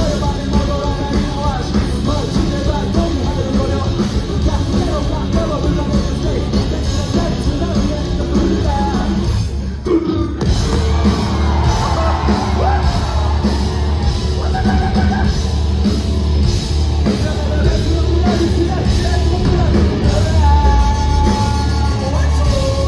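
Live rock band playing loud through the hall's PA, with shouted and sung vocals over guitar, bass and drums. The music drops out briefly about ten seconds in, then comes straight back.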